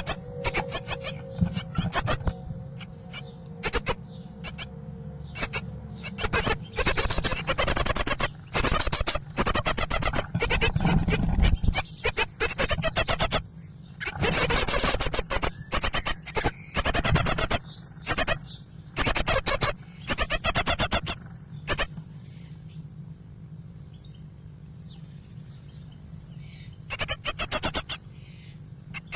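Great tit nestlings begging inside the nest box, a harsh chirping chorus in repeated bursts, some short and some over a second long, with a quieter lull about three-quarters of the way through before the calls start up again near the end.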